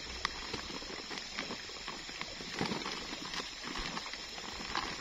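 Woven plastic sack being handled, rustling and crinkling with many irregular small clicks and taps.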